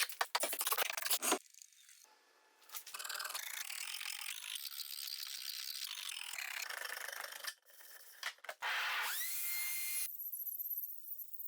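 Woodworking shop tool sounds. A quick burst of rapid clicks comes first, then several seconds of steady scraping noise, and near the end a louder machine sound with a whine that rises and then holds.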